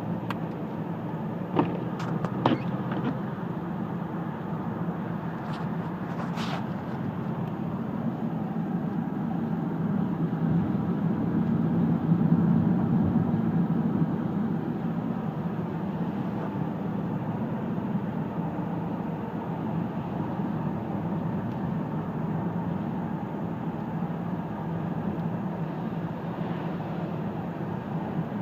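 A car driving along a road: steady engine and tyre noise, swelling about ten to fourteen seconds in, with a few sharp clicks in the first seven seconds.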